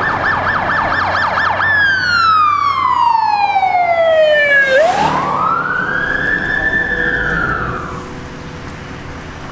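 Electronic emergency-vehicle siren: a fast warbling yelp, then a long tone falling over about three seconds, then a slow rise and fall that fades toward the end.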